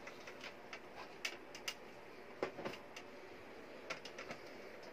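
Light plastic clicks and knocks, a few scattered taps with a small cluster near the middle, from the plastic case of a UPS being handled and prised apart with gloved hands after its screws are out.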